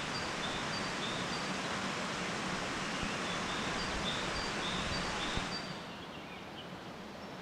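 Steady rush of a waterfall, with a bird repeating short high chirps over it; the rush drops away sharply about six seconds in.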